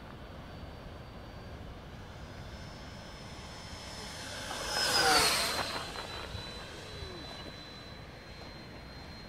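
Radio-controlled HSD Skysword jet making a low, fast pass: the high whine of its electric ducted fan grows louder, peaks with a rush of air about five seconds in, and drops in pitch as the jet goes by, then carries on fainter.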